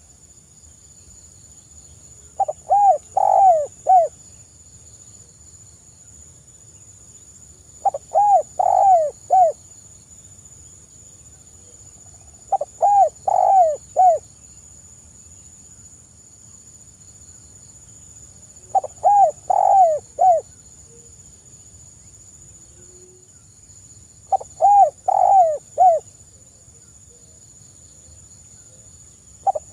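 Spotted dove (tekukur) cooing: a repeated phrase of four or five quick notes, each phrase about a second and a half long, given five times roughly every five to six seconds, with a sixth starting at the very end.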